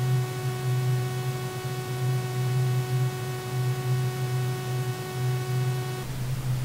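A loud low hum that swells and wavers, under a steady hiss. A single held tone, rich in overtones, sounds above it and cuts off suddenly about six seconds in.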